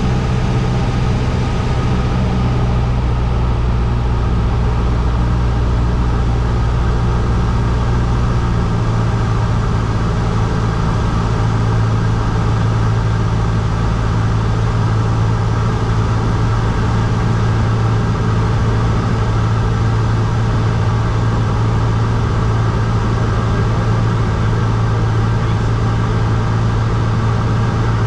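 Cessna 152's four-cylinder Lycoming engine and propeller running steadily in flight, a loud drone heard from inside the cockpit. Its lowest note shifts slightly about nine seconds in.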